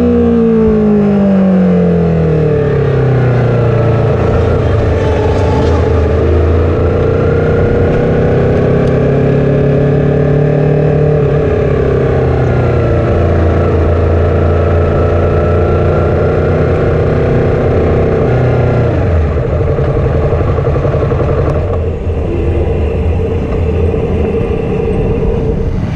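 Stock Yamaha R3's parallel-twin engine heard onboard as the bike slows. Its note drops over the first few seconds, then runs at low, fairly steady revs, and it turns quieter near the end as the bike rolls nearly to a stop.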